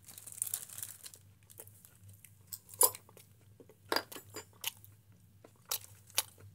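Light crinkling at the start, then about five sharp clicks and clinks as stainless steel chopsticks are set into a steel bowl and a cup-ramen cup is handled on a wooden table. One clink near the middle rings briefly like metal.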